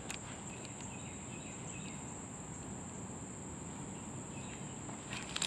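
Steady, high-pitched chorus of insects singing by a creek, with a few faint clicks near the start and just before the end.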